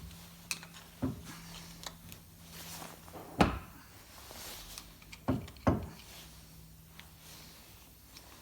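Knocks and small clicks of metal parts and tools being handled while a tractor's hydraulic piston, with its rings on, is worked back into its cylinder. The loudest knock comes about three and a half seconds in, and a pair follows close together a couple of seconds later.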